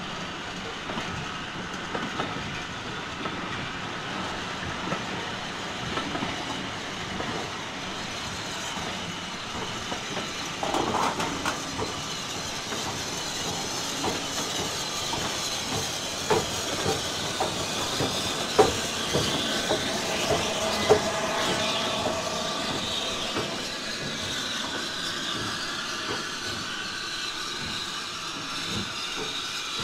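HO-scale model diesel locomotives hauling a container train: steady running noise with wheels clicking over rail joints, a few sharper clicks past the middle, and a whine that wavers up and down in the second half.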